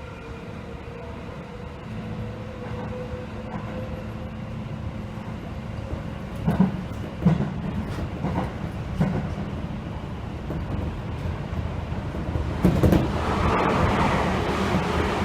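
Seibu 2000 series electric train running on the rails. A steady tone falls slightly at first, then the wheels knock over rail joints four or five times, and the running noise grows louder near the end.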